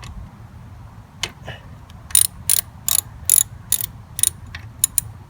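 Ratchet wrench clicking in a quick series of strokes, about two to three a second, then a couple of single clicks near the end, as the XR250R's oil drain bolt is worked.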